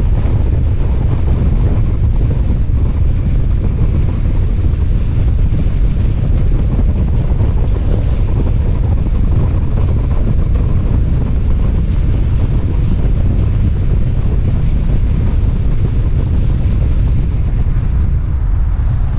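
Steady wind buffeting the microphone of a camera on a moving car, a loud low rumble with road and tyre noise under it.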